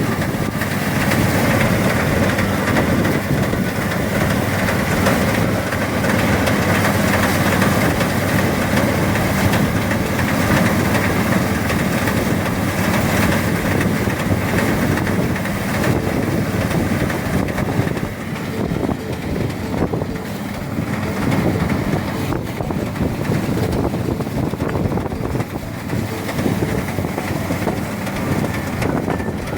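Motorized rice thresher running steadily, its engine and threshing drum making a continuous dense mechanical noise.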